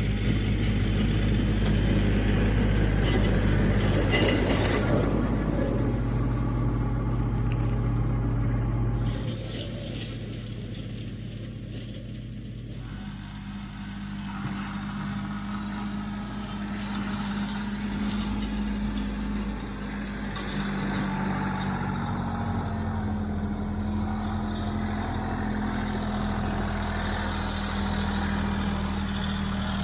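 Kioti CK3510SE tractor's three-cylinder diesel engine running steadily under load while driving the flail mower. The sound drops in level and its pitch shifts about nine seconds in, and shifts again around thirteen and twenty seconds.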